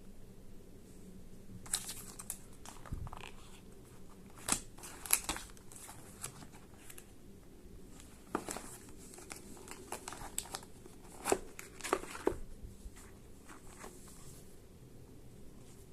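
Packaging being handled and opened: plastic wrap crinkling and tearing in irregular bursts, with small sharp clicks and rustles.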